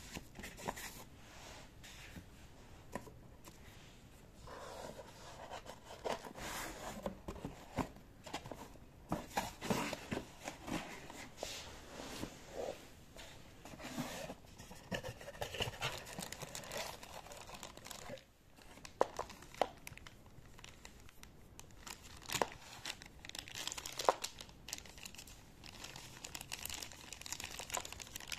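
Unpacking noise: plastic wrap and foam packaging sheets crinkling and rustling as they are handled, with irregular knocks and taps of cardboard box parts.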